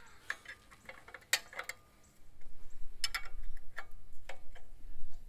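A wrench clicking and ticking on the belt tensioner nuts of a New Holland 451 sickle bar mower, a few sharp clicks a second with short pauses. A low rumble comes in about two seconds in.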